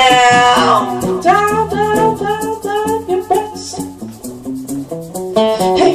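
Live acoustic music: a woman holds a long sung note over acoustic guitar, then the guitar plays on with softer sung lines, growing louder again near the end.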